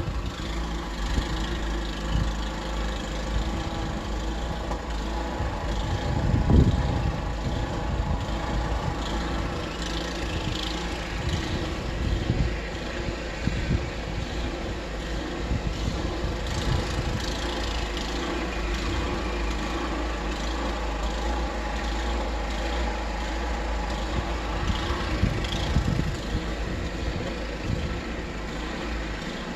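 An engine running steadily, with a low rumble and a few dull thumps, the loudest about six and a half seconds in.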